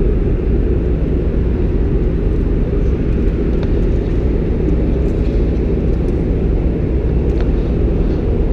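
Steady low rumble and hum of a hydroelectric power plant's generator hall, with generating units running.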